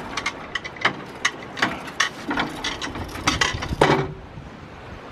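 Irregular metallic clicks and clanks from a small crane's lifting gear as an inflatable dinghy is craned out of the water on a bridle, with a louder knock just before four seconds in, after which the clatter stops.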